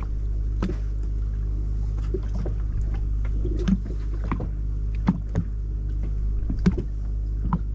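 Fishing boat's engine running with a steady low hum, with irregular knocks and clicks every second or so.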